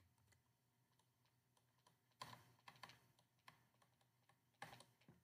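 Near silence with a few faint, short taps, a cluster about two seconds in and another near the end: a stylus tapping on a tablet screen as words are handwritten.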